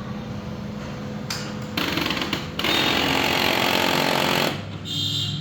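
HP LaserJet M1005 laser printer making its abnormal paper-pickup noise. Over a steady low hum, a loud harsh mechanical rattling starts about two seconds in and lasts about three seconds, then a short high whine sounds near the end.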